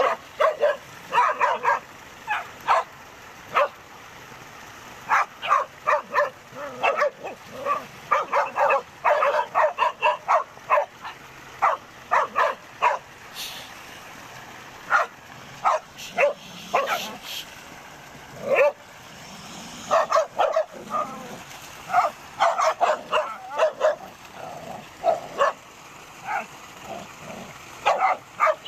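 Dog barking in quick runs of short, sharp barks, with brief pauses between runs.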